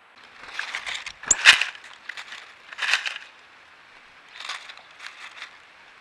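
Crunching and rustling of seed in a wooden tray feeder as an animal forages in it, close to the trail camera's microphone. It comes in three clusters of crackly bursts, the loudest about a second and a half in.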